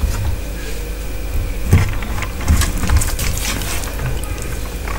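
Close-miked wet eating-by-hand sounds: fingers squishing and pulling chicken in curry and working rice, with a run of sharp wet clicks in the middle, over a steady low hum.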